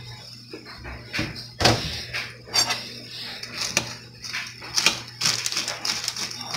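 Metal spoon stirring cereal and milk in a bowl, clinking and scraping against the bowl in a string of irregular clicks and knocks, the loudest about one and a half seconds in.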